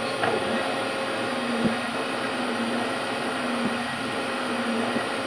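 OKK MCV-500 machining centre spindle running counterclockwise: a steady motor hum with a slight waver about once a second, typical of the drive hunting for its set speed in this direction, as the owner describes.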